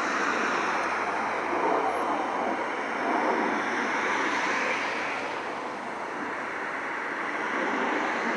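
Distant jet noise from the Snowbirds' formation of CT-114 Tutor jets flying past: a steady, even rushing noise that eases off slightly about two thirds of the way through.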